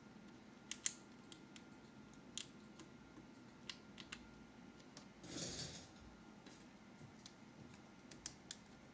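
Faint, sparse sharp clicks and taps at irregular intervals from handling a mechanical keyboard and its packaging, with one brief rustling swish about five seconds in.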